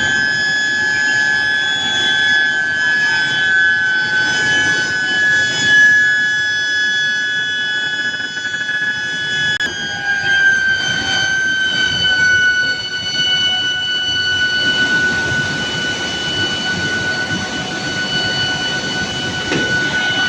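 Billet induction heating furnace running, its coil giving a steady high-pitched whine over the general hum of the machinery. The whine drops slightly in pitch about ten seconds in and then holds steady.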